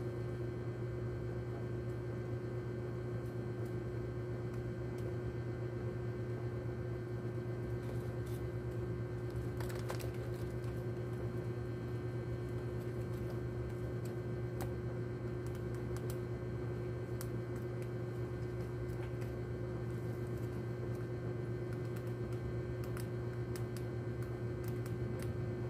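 Steady low hum with scattered faint ticks and clicks, a brief cluster of them about ten seconds in.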